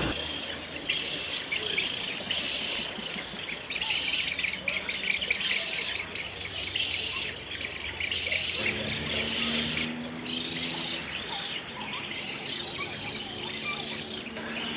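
Many small birds chirping and chattering together in dense, repeated bursts, as in a crowded aviary. A low steady hum joins a little past halfway.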